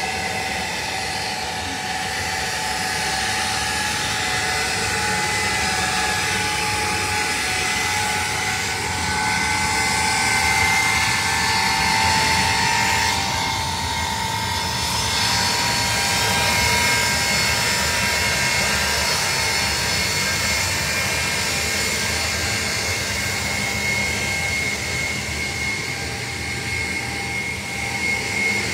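Ilyushin Il-76 transport's turbofan engines running: a steady high whine of several tones over an even rush of jet noise.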